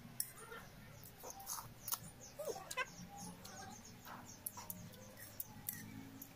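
Close-up eating sounds: mouth smacks and chewing, with light clicks of a metal spoon and fork against a ceramic bowl of noodle soup.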